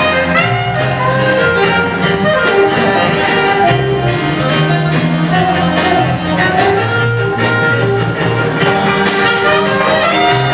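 Live jazz band playing with a steady beat: saxophones carry sustained melody notes over drum kit, electric guitar and bass.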